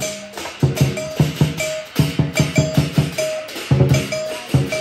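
Teochew lion dance percussion played live: a drum struck in quick runs of beats, about five or six a second, in groups with short gaps, with a short ringing higher note between the groups.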